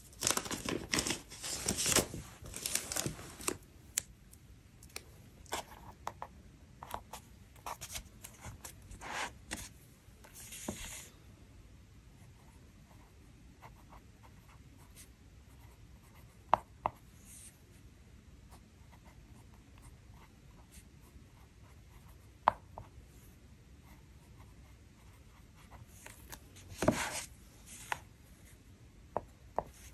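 Handling of a sticker sheet, with paper rustles and clicks and a sticker peeled off about ten seconds in. Then a TWSBI ECO fountain pen writes faintly on the planner page, with a few small taps and a louder rustle near the end.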